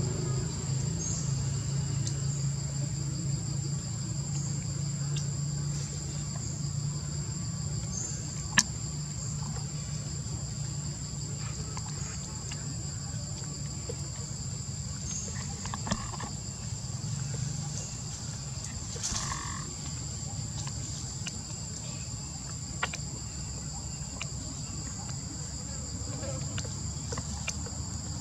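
Steady high-pitched insect chorus, crickets or cicadas, droning without a break, over a low rumble. A single sharp click about a third of the way in, with a couple of fainter ones later.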